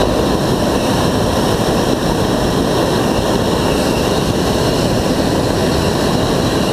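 Hot air balloon's propane burner firing in one long, steady, loud blast.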